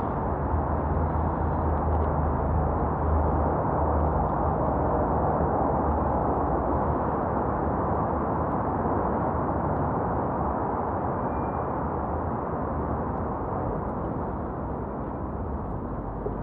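Steady rushing noise of a bicycle ride: wind over the microphone and tyres rolling on the path, with a low wind rumble that eases in the second half.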